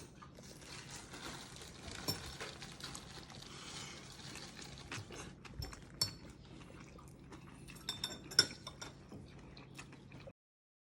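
Light clinks and taps of a spoon or fork against a plate over a low steady room hum, with a sharper clink about eight seconds in; the sound cuts off abruptly just before the end.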